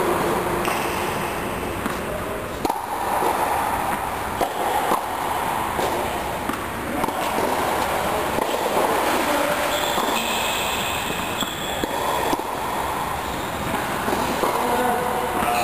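Tennis rally: a tennis ball struck by rackets with a sharp hit every two to three seconds, over a steady noisy background inside a tennis dome.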